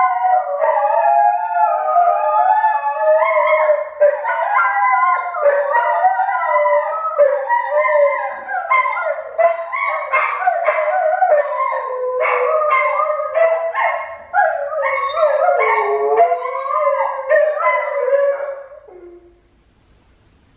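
Husky-type dogs howling together, several long gliding howls overlapping, with short sharp calls mixed in during the second half; the chorus dies away near the end.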